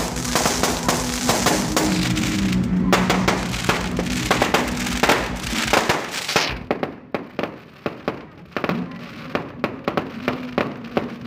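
Fireworks and firecrackers going off in dense, rapid crackling volleys, thinning about six and a half seconds in to separate sharp bangs with short gaps between them.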